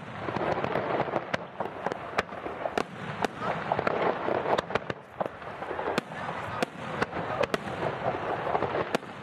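Aerial fireworks going off: many sharp bangs at irregular intervals over a continuous crackling hiss.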